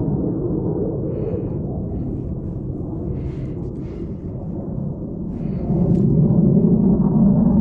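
Wind buffeting the camera microphone: a steady low rumble that grows louder about six seconds in.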